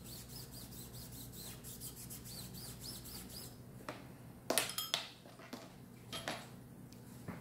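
Quick brushing strokes of a toothbrush on a bare aluminum part, with high little squeaks. About halfway through the metal part clinks sharply against something, the loudest sound, followed by a couple of lighter clinks as it is handled.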